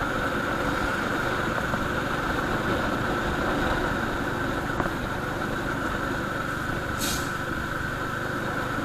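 Steady running noise of a vehicle on the road: a low engine drone under even road and wind noise, with a brief hiss about seven seconds in.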